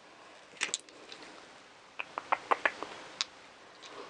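Small nail polish bottles clicking and clinking against each other as they are handled: a couple of light clicks about half a second in, a quick run of clicks around two seconds in, and a sharper click at the end.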